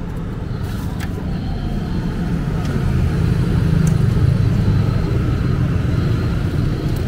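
Steady low rumble of road traffic passing close by, swelling to its loudest about halfway through, with a few light clicks of serving utensils.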